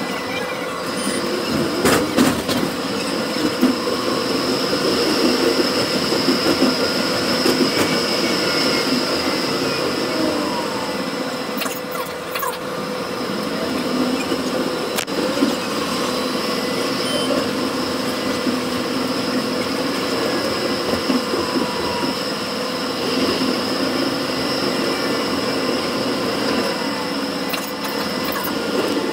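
Melbourne tram running along its track, heard from inside the passenger saloon: steady rolling of wheels on rails with a steady high-pitched whine that drops out briefly about twelve seconds in.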